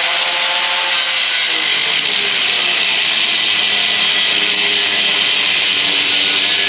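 Electric grinder with an abrasive cut-off wheel cutting through the steel frame rail of a 1987 GMC 7000 truck: a steady high screech of the wheel grinding into the metal, the motor's pitch wavering slightly as the wheel bites.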